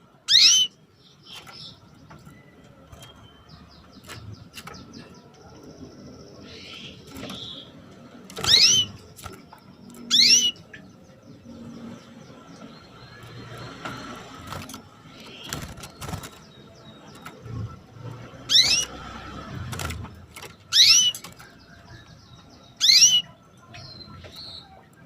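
Female canary giving short, rising 'cuit' calls, six in all at irregular gaps of two to eight seconds. Fainter chirps and clicks sound between them over a faint steady hum.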